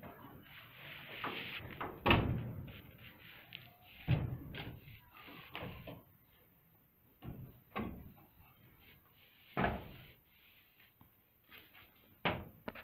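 Barn hay trolley rig knocking and clunking: the trolley, pulleys and rope bump the track and wooden barn frame in a string of irregular knocks, loudest about two seconds in and again near ten seconds, with quiet between.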